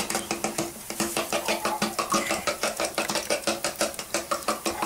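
Eggs being beaten by hand in a bowl, the utensil clicking against the bowl in a fast, even rhythm of about six strokes a second.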